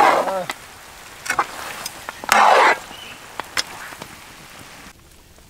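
A metal ladle scraping through thick, dry turkey fry in a large wok: two loud scraping strokes, one at the start and one just over two seconds in, with a few light clicks of metal on the pan between.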